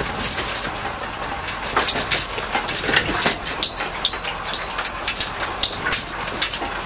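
A truck driving over a rough, snow-covered road: the engine running under a constant clatter of short rattles and knocks as the vehicle bounces over the bumps.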